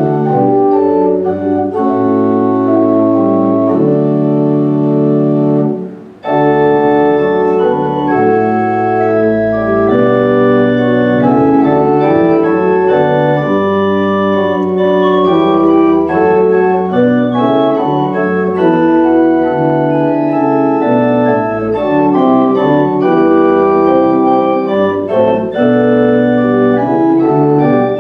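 Organ music: held chords changing every second or so, with a short break about six seconds in.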